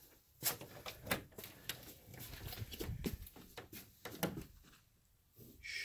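Soft footsteps and phone-handling noise as someone walks with a handheld phone: a scatter of light knocks and rustles. A brief whisper comes near the end.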